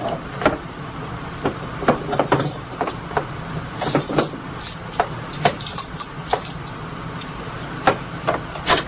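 Video cable and its metal connectors being handled: scattered clicks, knocks and light rattles as the cable is gathered up and its topside connector is brought to the console's front panel, with faint high-pitched squeaks on and off in the middle.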